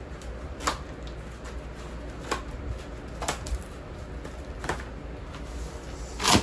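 Scissors cutting through a cardboard mailer: a handful of separate crisp snips about a second apart, then a louder, longer crunch of cardboard near the end as a flap is pulled open.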